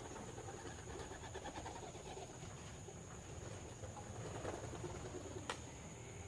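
Young racing pigeons cooing faintly, with one sharp click about five and a half seconds in.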